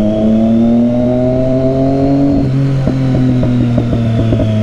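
Triumph Street Triple 675's inline three-cylinder engine through a Yoshimura aftermarket exhaust, revs climbing slowly under throttle. About two and a half seconds in the revs drop off and the exhaust crackles and pops on the overrun.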